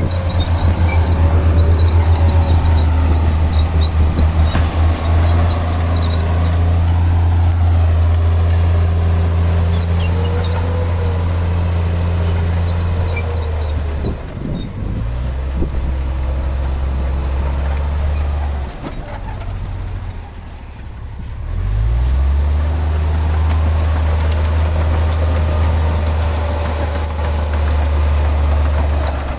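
Heavy earthmoving machine's diesel engine running under load with a deep, steady drone. About halfway through it eases off and changes pitch, dips lower for a few seconds, then picks back up to a steady drone.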